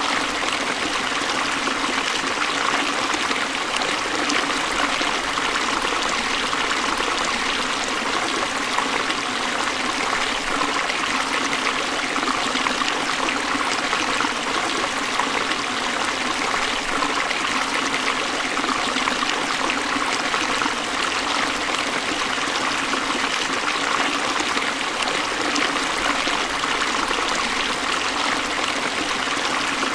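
A shallow forest stream running steadily over rocks, a continuous rushing and trickling of water.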